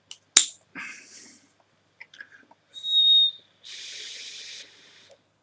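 Vaping on a dripping atomizer: a sharp click, then a draw through the atomizer with a high steady whistle, followed by a long hissing exhale of vapour.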